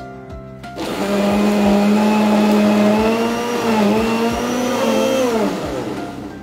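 Kiam countertop blender motor starting up about a second in and running steadily at speed, blending chopped fruit. Its pitch dips briefly partway through, and near the end it winds down as the motor is switched off.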